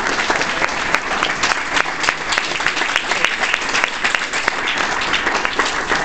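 Audience applauding: many hands clapping at a steady level.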